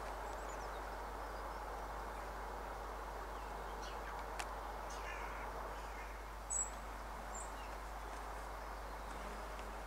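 Quiet rural ambience: a steady low hiss with a few faint bird calls, and one brief sharper chirp a little past halfway.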